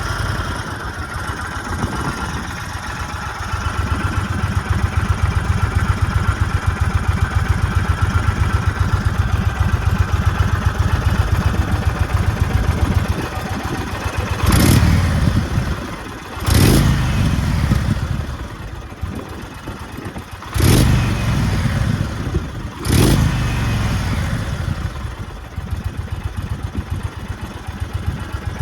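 Indian Chief Bobber Dark Horse's air-cooled V-twin idling through its stock exhaust, then four quick throttle blips about two to four seconds apart, each dropping back to idle.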